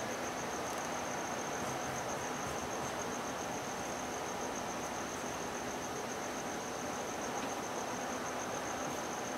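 Insects trilling steadily in a fast, even pulse over a constant hiss.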